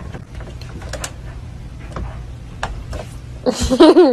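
Irregular light clicks and taps from a plastic pet-door flap as a cat paws at it and pushes through. Near the end, a short loud voice with a wavering pitch.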